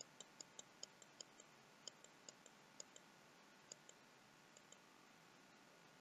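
Faint, irregular clicking of a computer mouse button, several clicks a second at first, thinning out and stopping about three-quarters of the way in.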